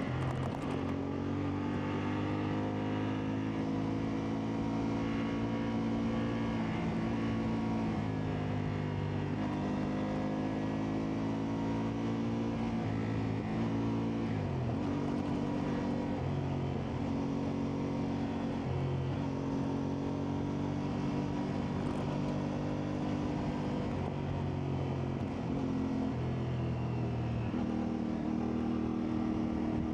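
CFMoto 450MT's parallel-twin engine running as the motorcycle is ridden off-road. Its note rises and drops several times with the throttle, with a sharp dip about halfway through.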